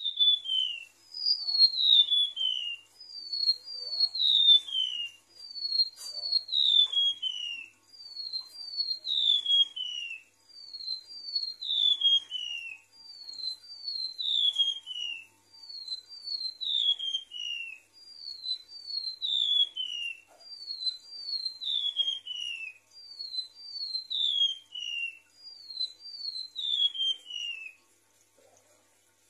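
Golden-bellied gerygone (remetuk laut) singing: high, thin whistled notes that each slide down in pitch, given in short phrases of two or three notes, about one phrase every two seconds.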